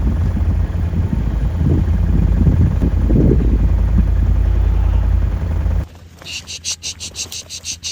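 Wind buffeting the microphone in a heavy, irregular low rumble. It cuts off abruptly about six seconds in, giving way to a rhythmic high chirping of insects at about four pulses a second.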